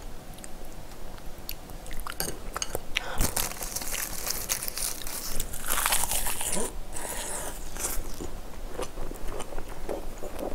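Close-miked eating of a roasted seaweed (gim) wrap filled with Buldak fried noodles and stew kimchi: biting and chewing with crisp crunching and small wet mouth clicks. The crackly crunching comes in bursts about three seconds in and again around six to seven seconds.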